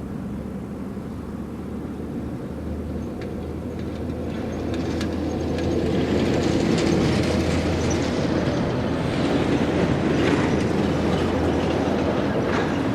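Heavy lorries rolling off a ferry: diesel engines running and wheels clanking over steel ramp plates, getting louder about five seconds in as they come closer.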